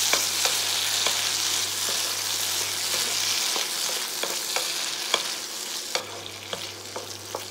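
Fried prawns sizzling in a wok of chilli-garlic sauce while a spatula stirs them, with irregular taps and scrapes of the spatula on the pan. The sizzle grows quieter toward the end.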